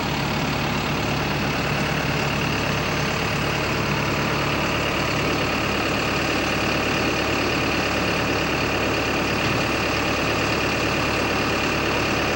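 A motor engine running steadily at idle.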